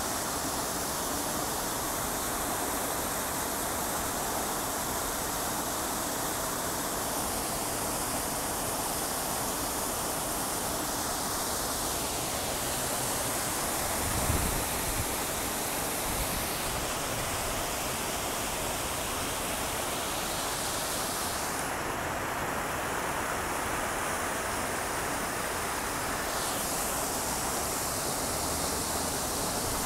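Revson Fountain's row of water jets splashing down into its basin: a steady rush of falling water, with one brief low thump about halfway through.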